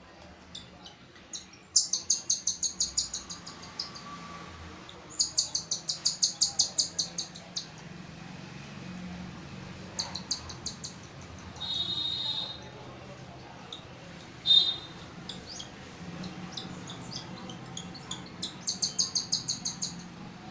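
Baby cockatiel chicks giving food-begging calls while being hand-fed: bursts of fast, high, repeated chirps lasting a second or two, four times, with a couple of shorter single squeaks between.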